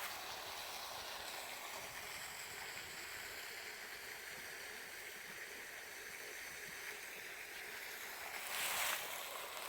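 Stream water flowing, a faint steady rush. A brief louder rustle comes near the end.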